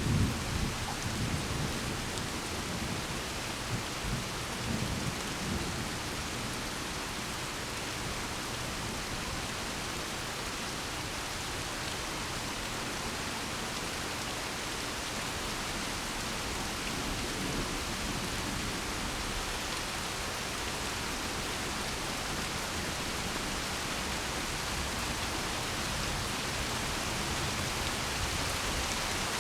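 Steady rain falling, with a rumble of thunder in the first few seconds that rolls on in several swells before the rain carries on alone.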